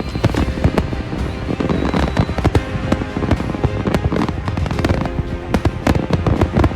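Fireworks going off in rapid succession, a dense run of bangs and crackles, with music playing along.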